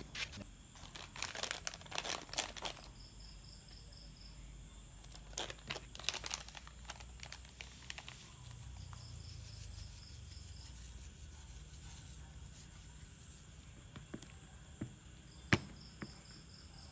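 Crinkling and rustling of a plastic seasoning sachet as it is handled and torn open, in two bursts during the first half. Under it, a steady high insect trill with short chirping runs every few seconds, and a single sharp tap near the end.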